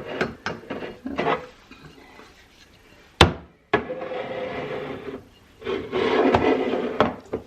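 Pantry jars and containers being set down and slid along shelves: small knocks, one sharp loud knock about three seconds in, then two stretches of scraping.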